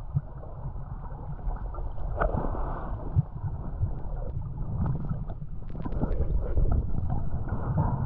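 Water sloshing and gurgling close to the microphone, with low buffeting noise and a few small clicks scattered through.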